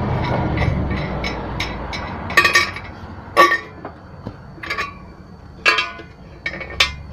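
Clinks and clanks of a stamped-steel air cleaner lid being unscrewed and lifted off a carburetor: light ticks, then about five sharper metallic clanks, each with a short ring. A low background rumble fades out in the first couple of seconds.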